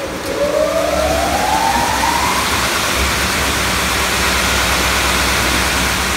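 Three-head wide belt sander's motors spinning up just after starting: a rising whine that climbs for about two and a half seconds, then gives way to the steady rush and hum of the machine running at speed.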